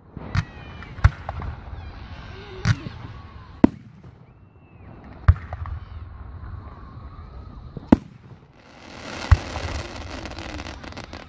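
Aerial firework shells bursting at an outdoor fireworks display: about seven sharp bangs at uneven intervals, a second or more apart.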